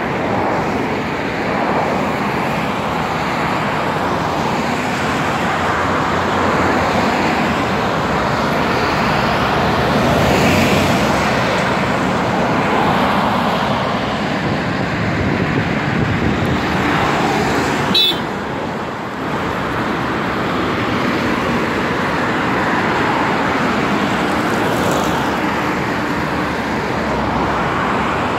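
Steady road traffic on a multi-lane highway: cars and lorries passing, their tyre and engine noise swelling and fading as each goes by. A short sharp click about eighteen seconds in.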